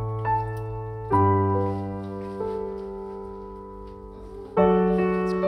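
Background piano music: slow chords that ring and fade away, a new chord every one to two seconds.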